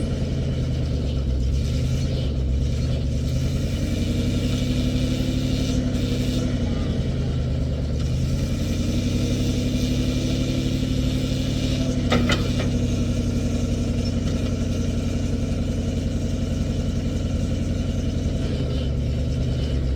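Old International backhoe's engine running steadily, its pitch swelling and sagging a few times as it works, with a single metallic clank about twelve seconds in.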